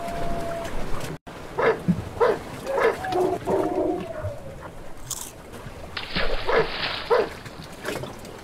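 Dogs barking in a series of short yelps, with drawn-out whines in between.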